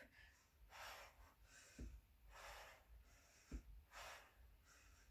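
Faint, quick breathing of a woman exerting herself through a conditioning exercise: about six breaths at an even pace, with two soft low thuds in between.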